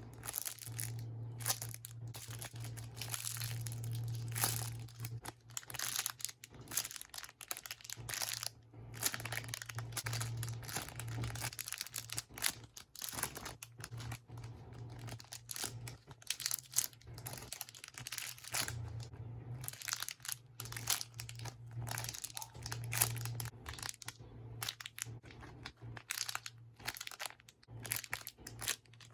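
Squishy toys being handled, with crinkling and rustling in quick irregular bursts over a steady low hum.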